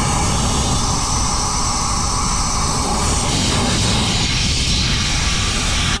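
Compressed-air blow gun blasting air down a fridge-freezer's defrost drain hole to clear a blockage: a loud, steady hiss.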